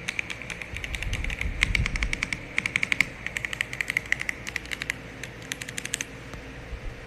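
Typing on an RK M75 wireless mechanical keyboard with PBT doubleshot keycaps and full foam: quick runs of key clicks that stop about six seconds in.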